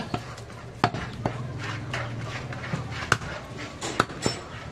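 Large butcher's knife chopping goat meat against a wooden log block: several sharp knocks, irregularly spaced.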